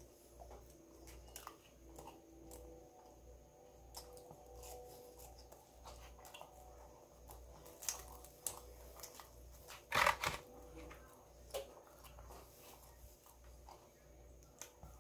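Faint chewing and mouth sounds of a person eating a P'Zone calzone, with scattered small clicks. There is a louder short sound about ten seconds in.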